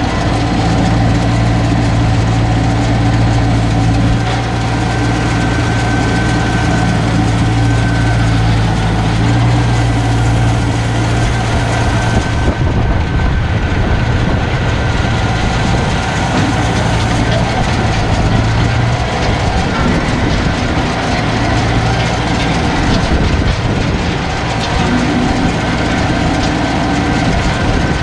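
Tractor engine running steadily while towing and powering a round baler, the engine's drone mixed with the baler's mechanical rattle as it picks up hay.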